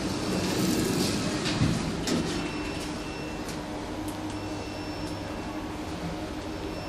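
OTIS Gen2 elevator with a regenerative drive: a sliding, rushing sound with a thud about a second and a half in, then a steady hum with a faint high whine.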